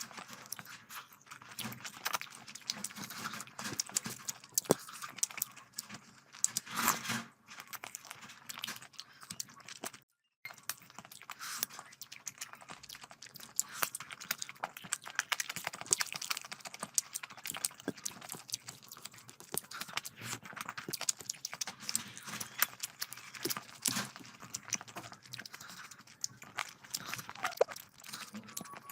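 Close-miked chewing and wet mouth sounds of someone eating curry with rice: dense, irregular smacks and clicks. The sound cuts out completely for a moment about ten seconds in.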